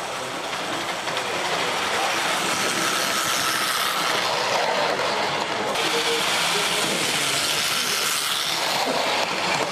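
0 gauge tinplate model train running along metal track close by, a steady rattle of its wheels on the rails.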